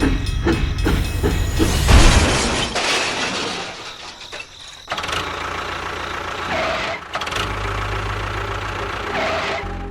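A small engine or motor running with a rhythmic pulsing, then a loud noisy burst about two seconds in, followed by a steady mechanical running noise with a low hum.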